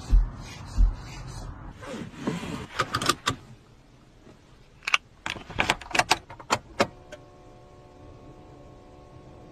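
Low thumps and runs of sharp plastic clicks as the interior fittings of a Wuling electric city car are handled. About seven seconds in, a steady electronic chord starts as the dashboard screen boots to the Wuling logo.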